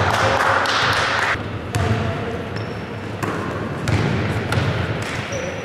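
Basketball bouncing on a hardwood gym floor during play, a few separate sharp knocks, with players' voices calling out in the first second and a half.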